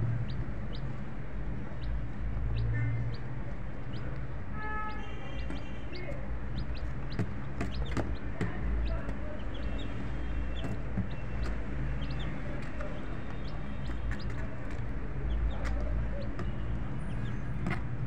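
Poultry-yard sound: chickens clucking now and then with short bird calls and scattered clicks, over a steady low hum.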